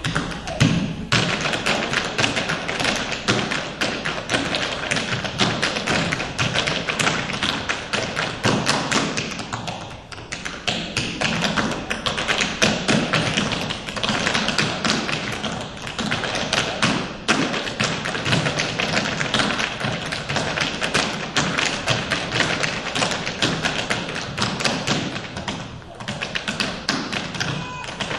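Tap shoes striking a stage floor in fast, continuous rhythms, with a brief lull about ten seconds in.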